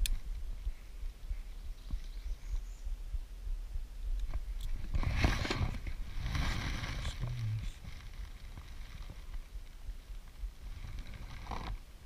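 Close handling noise as a small bass is held and turned in the hand right by the camera: rustling and scraping, loudest for a couple of seconds about five seconds in, over a steady low rumble.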